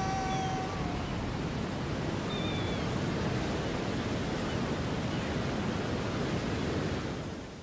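Steady rushing ambience of wind and sea, which cuts off just before the end. A held tone fades out about a second in, and there is a faint chirp about two and a half seconds in.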